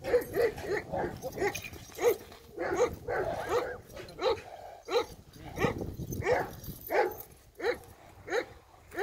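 A dog barking over and over in a steady rhythm, about one bark every two-thirds of a second.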